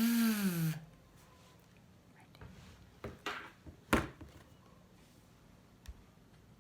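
A woman's voice drawing out one word at the very start, then quiet room tone broken by a brief scratchy rustle about three seconds in, a sharp click about four seconds in, and a faint tap near the end.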